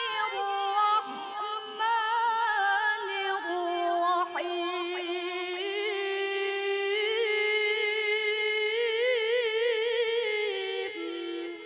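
A woman's unaccompanied Quranic recitation (tilawah) sung into a microphone, in long drawn-out ornamented phrases. Near the end she holds one long note with a wavering vibrato, then the voice drops and trails off.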